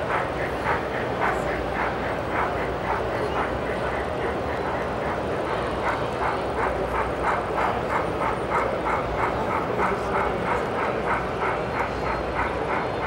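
Model steam locomotives #90 and #475 pulling a passenger train away, their sound units chuffing in an even rhythm of about three to four chuffs a second, over a steady background hum of hall noise.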